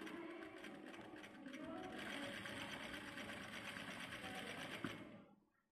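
Sewing machine running steadily as it stitches a seam through the layered cloth of a face mask. It grows a little louder about two seconds in, then slows and stops about five seconds in.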